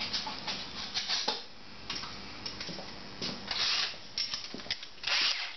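Irregular rubbing and light knocks from handling the camera across a workbench, in short uneven bursts, with no power tool running.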